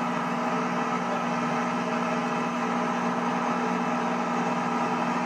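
Piper Cherokee Six's piston engine and propeller, a steady even drone heard inside the cabin in level cruise.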